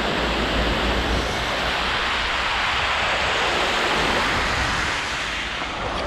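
Waterfall: falling water rushing steadily, a dense, even noise that eases slightly near the end.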